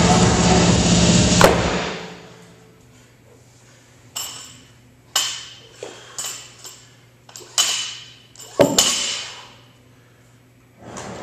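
Rubber bumper plates being slid off a steel barbell sleeve: a run of sharp metallic clanks, each with a short ring, about nine over five seconds, the loudest near the end. Electronic music plays at the start and cuts off about a second and a half in.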